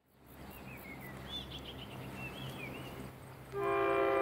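Birds chirping over a faint low hum. About three and a half seconds in, the horn of an approaching Thai Railways NKF diesel railcar train sounds: a loud, steady blast of several tones at once, still sounding at the end.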